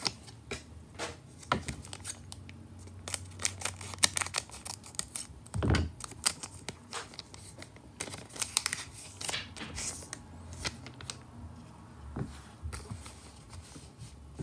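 A foil Pokémon booster pack crinkling as it is cut open with scissors, with a run of short sharp clicks and snips, then the cards inside are slid out and handled. There is a low thump a little before the middle.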